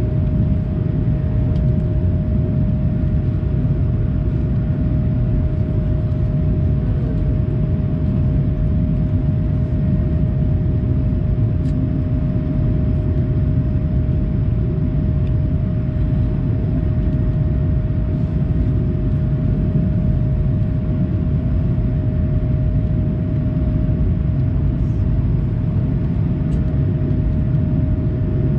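Steady cabin noise inside an Airbus A220-300, a dense low rumble from its geared turbofan engines and airflow, with a steady hum tone over it.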